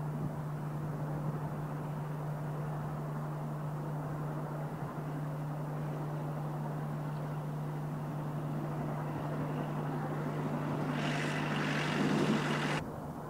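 Distant steam locomotive, LMS Princess Royal class Pacific 6201 Princess Elizabeth, working its train up a steep main-line grade, heard as a steady drone. It grows louder and hissier for the last couple of seconds, then cuts off suddenly.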